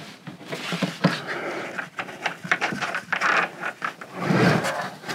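Irregular knocks, clicks and scrapes of a 12 V compressor fridge being shifted and levelled on its adjustable feet in a cabinet space that is too tight for it.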